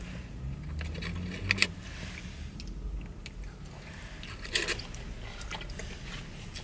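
People chewing french fries, with a few short sharp clicks or crunches, the clearest about a second and a half in and again about four and a half seconds in, over a low steady hum.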